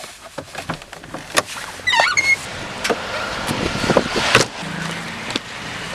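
A person getting out of a car: handling clicks and knocks at the door, the car door opening, and a loud thud about four seconds in that fits the door being shut, over a steady outdoor hiss.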